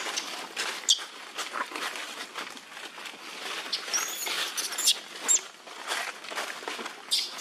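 Dry leaves crackling and rustling, with several short high-pitched squeaks.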